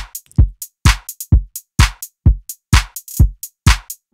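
Programmed drum-machine loop playing back: a deep kick drum with a falling pitch on every beat, a little under half a second apart, with sharper, brighter hits between the kicks.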